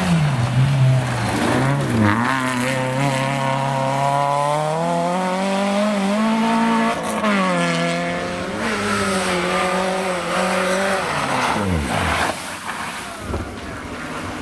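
Peugeot 106 rally car at full throttle on a gravel stage, engine revving hard. The pitch climbs for several seconds, dips at a gear change about seven seconds in, holds high, then falls away steeply near the end.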